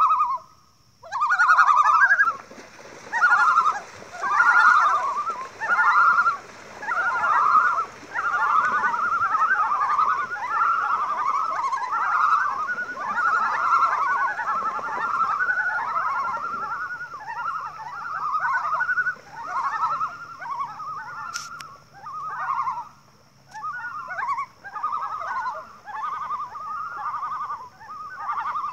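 A group of common loons calling over one another almost without pause: a long run of short, wavering calls that overlap, during the loons' group water-dance display.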